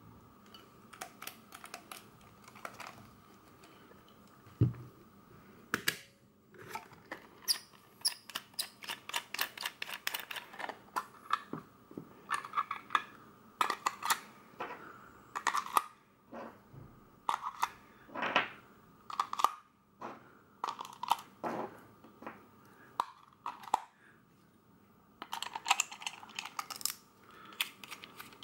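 Hands handling a Braun Nizo 801 Macro Super 8 camera and its plastic battery holder: irregular clicks, rattles and scrapes as the battery compartment is opened and the holder with its cells is taken out and handled, in quick runs with short pauses. A faint steady high tone sits underneath.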